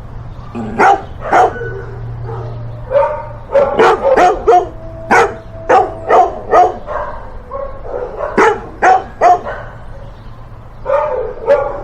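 A dog barking close up in quick runs of two to five sharp barks, with short pauses between the runs. A low steady hum sits underneath.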